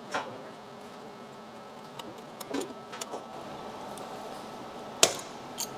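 Stanley knife cutting through the plastic bumper housing: a few short scrapes and clicks, the sharpest about five seconds in, over a faint steady hum.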